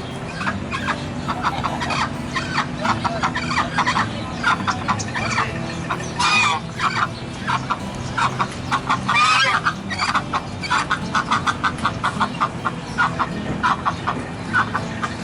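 A flock of domestic poultry calling, with many short overlapping calls throughout and two louder, longer calls about six and nine seconds in, over a steady low hum.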